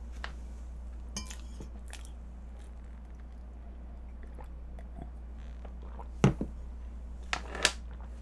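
Quiet eating and drinking sounds, a person sipping milk from a glass and chewing, over a steady low hum. There is a thump about six seconds in, then two short sharp noises near the end.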